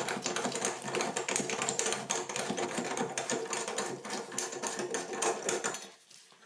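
Rapid, steady mechanical clicking and rattling of a hand tool at work on the old bathtub drain as it is taken out, stopping abruptly near the end.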